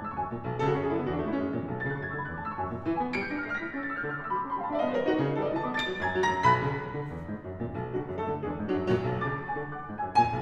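Background music: instrumental piano-led piece with a falling run of notes about halfway through.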